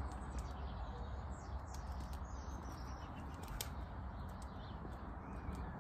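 Faint small birds chirping over a steady low background rumble of outdoor air.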